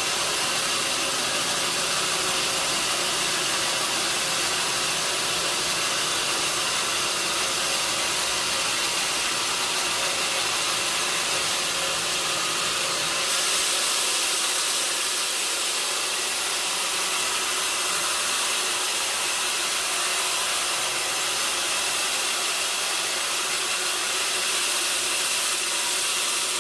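Sawmill saw running steadily with a loud, even hiss and rumble, the sound of machine-sawing mahogany. About halfway through the low rumble drops away and the hiss gets brighter.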